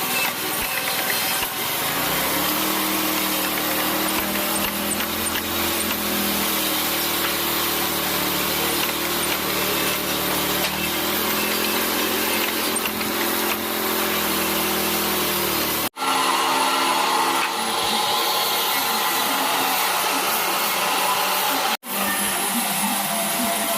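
Electric power tool working hardwood, its motor running steadily under load. The sound breaks off twice, near two-thirds of the way and near the end, each time resuming at once.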